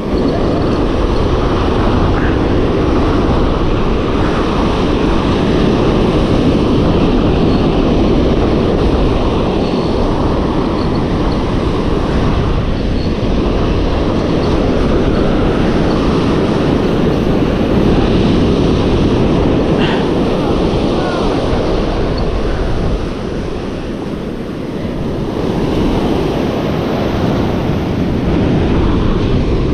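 Surf washing up on a sandy beach, with wind rumbling on the microphone: a loud, steady rushing noise that eases for a couple of seconds about three-quarters of the way through.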